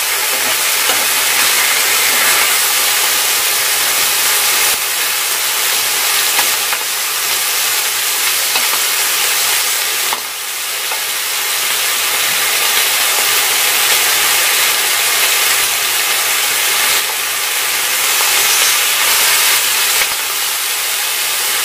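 Pork neck slices, mushrooms and onion sizzling on a hot grill pan: a loud, steady frying hiss.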